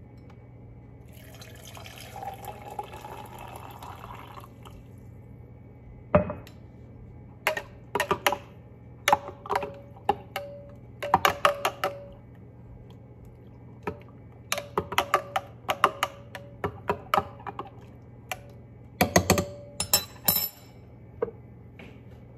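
Water poured into a glass mug over a tea bag, a filling sound lasting about three seconds. Then a metal spoon stirring and clinking against the glass in quick runs of ticks, with a cluster of louder clinks near the end.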